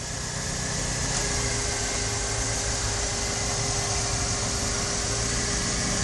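Supercharged, ethanol-fuelled GM Tracker 4x4 engine running steadily at low revs without revving, with a thin steady tone over the low rumble.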